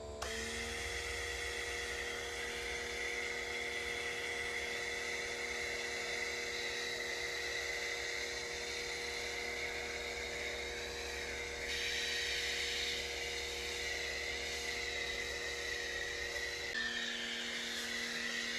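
Pressure washer running steadily with a whine while spraying through a foam cannon. The tone shifts briefly about 12 seconds in and again near 17 seconds as the foam cannon is adjusted while it runs.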